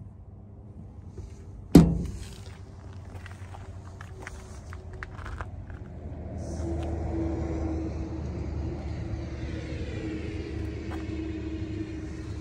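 A sharp metal clack about two seconds in, the pickup's fuel filler door snapping shut. From about six seconds in a steady motor vehicle rumble builds and holds.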